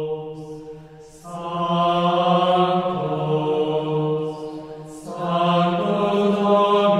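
Closing music of slow chanting: long held sung notes in phrases. One phrase fades out about a second in, and a new one starts just after. Another new phrase starts about five seconds in.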